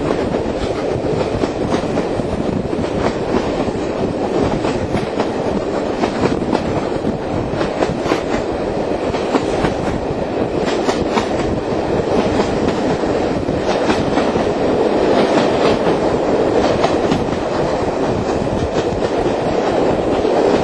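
Steam-hauled train running, heard from an open carriage window: a steady rumble of wheels on the rails with scattered clicks over rail joints, growing a little louder in the second half.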